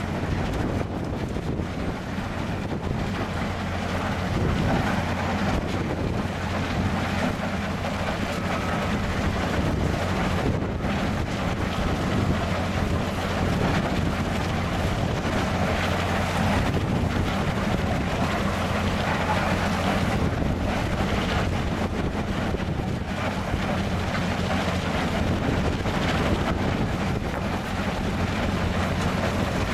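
Fabtec portable belt feeder with an auto grizzly running steadily: a constant low mechanical drone from its drive. Wind buffets the microphone.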